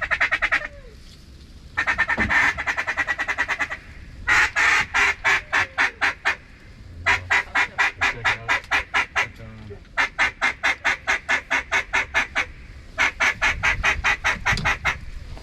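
Duck call blown in quick runs of quacks, about half a dozen rapid strings with short breaks between: a hunter calling to ducks from the blind.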